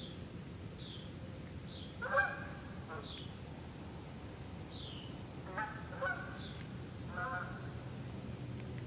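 Geese honking: four short honks, two of them close together in the middle. A small bird repeats a short, high, falling note about once a second throughout.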